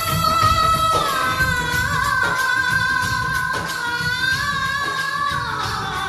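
Bollywood film song in an 8D-audio mix: a long, held melody line that slides between notes over the accompaniment.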